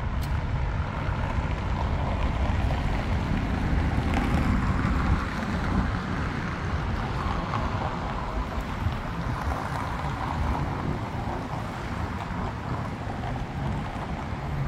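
Steady outdoor street noise: traffic on a riverside road, a continuous low rumble with no distinct events.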